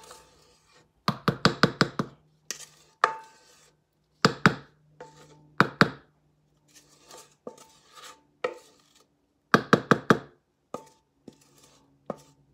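A spoon knocking and scraping thick cake batter out of a stainless steel stand-mixer bowl. The knocks are sharp, some single and some in quick runs of four or five, and the bowl rings briefly after some of them.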